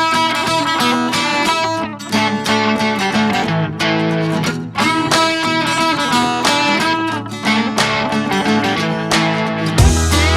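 Background music: upbeat guitar-led track with plucked and strummed guitar notes, a heavy bass line coming in near the end.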